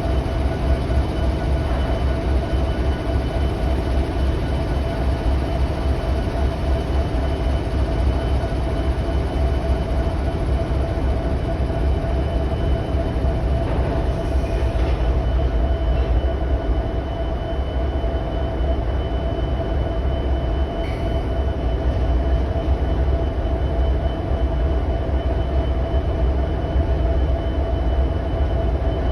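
Union Pacific freight train's cars rolling past steadily, a continuous heavy low rumble with a steady high-pitched ring from the wheels running over it.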